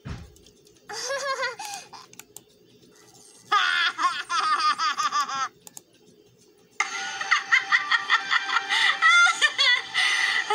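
Cartoon characters laughing hard in three bouts with short gaps between, the longest in the second half, played back through a computer's speakers.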